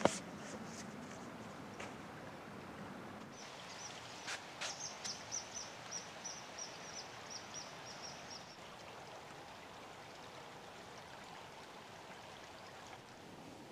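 Shallow river flowing over stones, a steady wash of water. From about three to eight seconds in, a small bird calls a string of short, high notes, about three a second. A sharp click comes right at the start.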